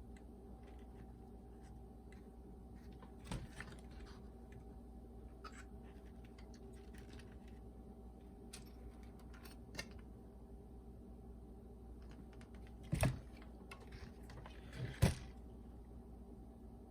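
Scattered light clicks and taps of hands handling the opened boombox and its parts, with two louder knocks near the end, over a faint steady hum.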